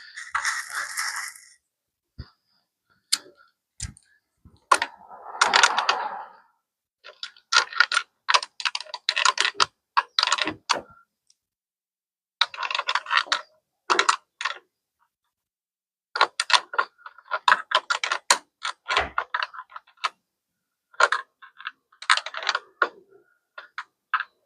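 Hand tools clicking against metal in irregular bursts of rapid clicks, with short rustling noises between them, as parts of a motorcycle are worked on and fastened.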